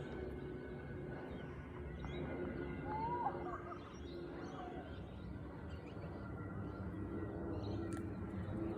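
Boeing 767 freighter's jet engines heard at a distance as a steady low rumble with a faint whine. Small birds chirp briefly about three seconds in.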